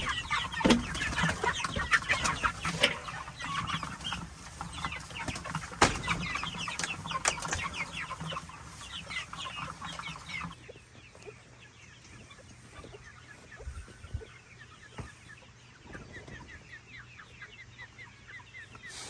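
A flock of chickens clucking and chirping with many rapid overlapping calls, with two sharp knocks in the first half. The calling drops abruptly to a quieter level about ten seconds in and carries on more faintly.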